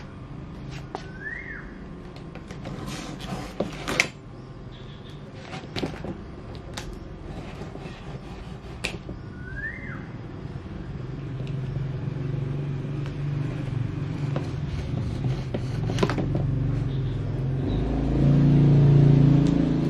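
A vehicle engine's low rumble that builds from about halfway and is loudest near the end, as a vehicle passes. Two short chirps that rise then fall, from a bird, and scattered light clicks and taps.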